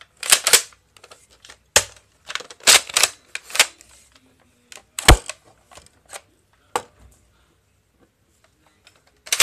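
Sharp plastic clacks and snaps of a Nerf dart blaster being worked by hand, about a dozen irregular strokes over the first seven seconds, then a pause and one more clack at the end; the blaster has jammed and is being cleared and re-primed.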